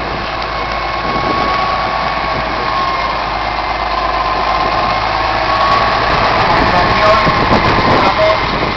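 Massey Ferguson 7624 tractor's six-cylinder diesel engine idling steadily.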